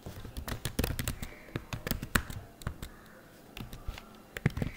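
Typing on a computer keyboard: quick runs of key clicks, dense for the first couple of seconds and then sparser, as a short terminal command is typed.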